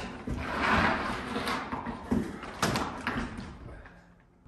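A large sliding glass door panel being handled: a scraping rush in the first second and a half, then a few separate knocks and bumps of the frame against the framing and floor, dying away near the end.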